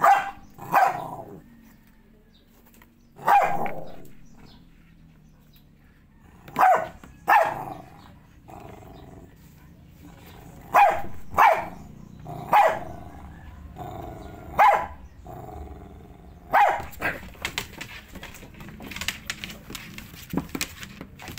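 Dog barking, about ten sharp barks, several of them in quick pairs, with pauses of a few seconds between them. The barks stop about three-quarters of the way through.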